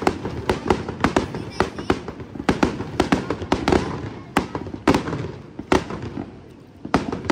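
Fireworks display over a lake: a rapid, irregular string of sharp bangs from aerial shells bursting, several a second. They thin out about six seconds in and pick up again near the end.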